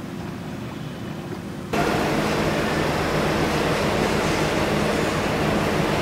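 Steady low engine drone of a large ship. A loud rushing noise cuts in abruptly about two seconds in, as at an edit, and stops sharply at the end.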